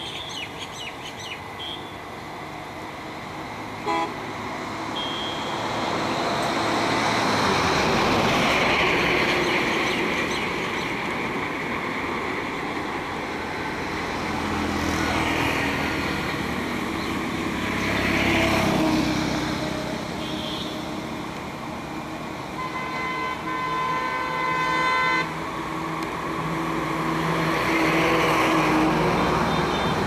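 Road traffic passing one vehicle after another, the noise swelling and fading several times. A vehicle horn sounds for about two seconds late on.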